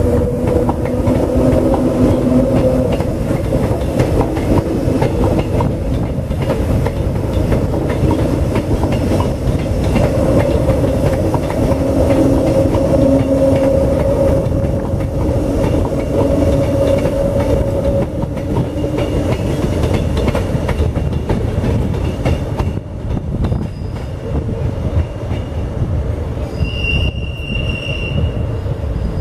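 Six-car Queensland Rail electric multiple unit passing and pulling away: a steady rumble of wheels on rail with a humming drone that fades as the train recedes. A brief high squeal near the end.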